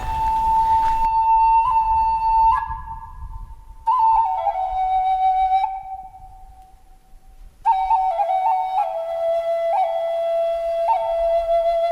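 Flute playing a slow melody of long held notes that step up and down, in three phrases separated by short pauses.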